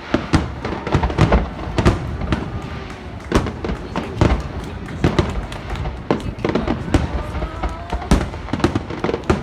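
Aerial fireworks bursting in quick, irregular succession, with loud booms and sharper cracks several times a second: a dense barrage at the climax of a fireworks display.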